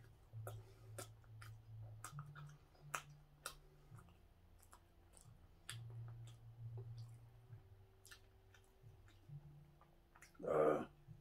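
Close-up eating sounds of a soft steamed bun (hoppang) being chewed: irregular wet mouth clicks and smacks. Near the end comes one short, louder rushing noise.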